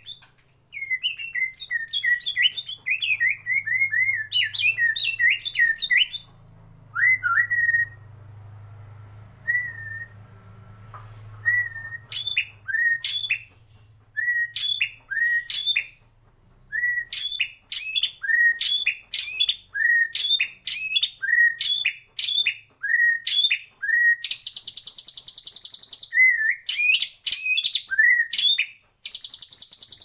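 White-rumped shama singing: fast chattering phrases at first, then a long run of short whistled notes that swoop up and down around one pitch, broken by a harsh buzzing rattle twice near the end.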